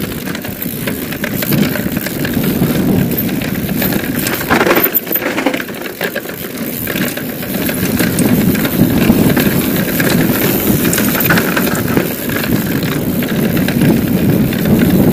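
Mountain bike ridden fast down a dirt singletrack: a steady rush of wind on the microphone and tyre noise, with the bike rattling over bumps throughout.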